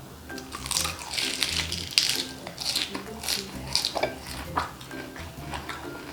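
Loud, irregular crunching of crispy fried chicharon bulaklak being chewed close to the microphone, over background music.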